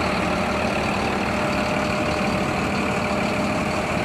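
Diesel engine of a Mercedes-Benz OF1623 front-engine coach idling steadily.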